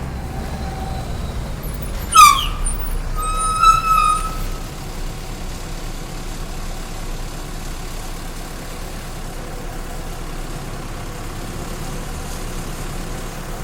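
Steady street traffic noise, with two short high-pitched sounds about two seconds and three and a half seconds in, the first sliding in pitch and the second held level.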